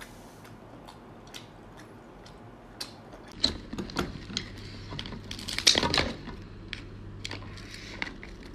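Crab shell cracking and crackling as it is handled and broken apart by hand: scattered sharp clicks, growing denser after a few seconds, with the loudest burst of cracks a little past halfway.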